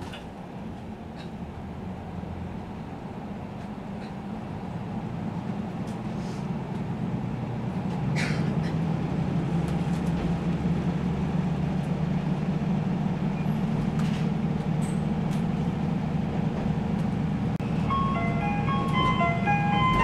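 Diesel engine of a KiHa 185 railcar pulling away, heard from inside the passenger cabin: a low drone that grows louder as the train accelerates, stepping up about eight seconds in. Near the end the JR Shikoku onboard chime begins, the melody that comes before a conductor's announcement.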